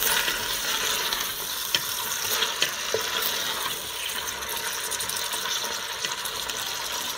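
Chopped vegetables sizzling in hot oil in a stainless steel pot as a spatula stirs them, with a few light scrapes and knocks of the spatula against the pot.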